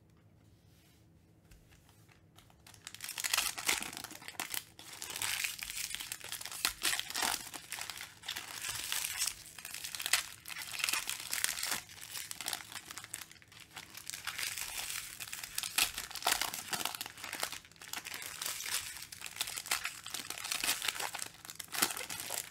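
Foil wrappers of Panini Mosaic basketball card packs being crinkled and torn open by hand: a continuous run of crackling rustles with sharp spikes, starting about three seconds in.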